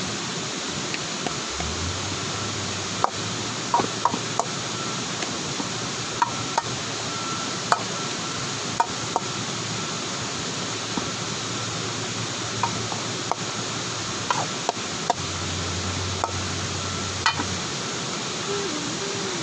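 A wooden spatula stirring shredded rattan shoots in a metal wok, giving irregular clicks and scrapes against the pan, over the steady rush of a nearby waterfall.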